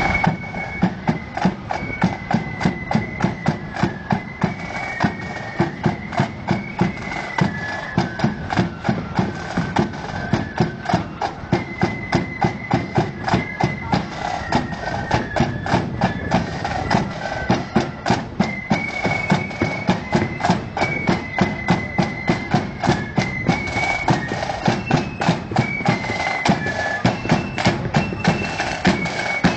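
Marching flute band playing a tune, the flutes carrying the melody over drums beating a steady march of about two strokes a second.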